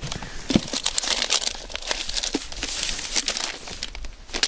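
Plastic zip-top bags crinkling as they are handled, in a run of irregular rustles and sharp crackles.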